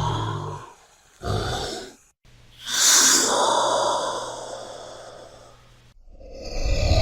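Komodo dragon sound effect: two short, breathy calls, then a longer raspy one about two and a half seconds in that fades away over some three seconds, with another starting near the end.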